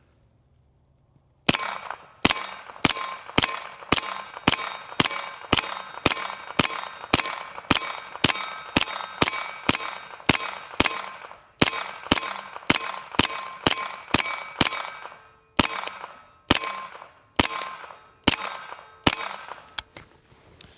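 Suppressed CZ Scorpion EVO 9mm fired in a steady rapid string, about two shots a second with a couple of short pauses, around 35 shots in all. Each shot is followed by the ringing clang of a steel target being hit.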